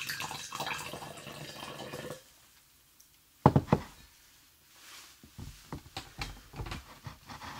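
Wine poured from a bottle into a glass beer mug for about two seconds, a steady splashing pour. About a second later come two loud, sharp knocks, then softer knocks and rustling as the mug is handled.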